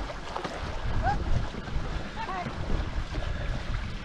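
Wind buffeting the microphone over the rush of water around a two-person racing canoe under way, with a couple of short high chirps.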